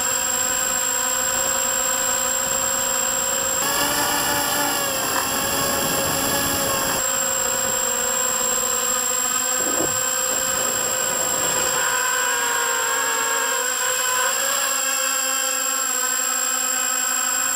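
Eachine Assassin 180 quadcopter in flight: its four 1806-2300KV brushless motors and 4-inch propellers whine steadily, the pitch wavering as throttle changes. A constant thin high-pitched whine sits above the motor sound.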